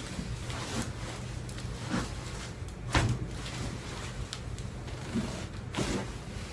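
A few short knocks and rustles of hands and body on a chiropractic table during an adjustment, the loudest about three seconds in, over a steady low hum.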